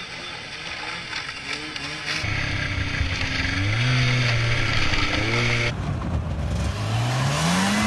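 Snowmobile engines revving while the sleds cross open river water, the engine pitch climbing and dropping several times. The sound changes abruptly about three quarters of the way through, and the pitch climbs again near the end.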